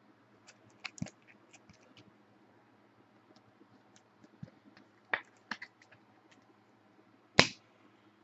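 Trading cards and their plastic packaging being handled: scattered light clicks and scrapes, with a louder short scrape near the end.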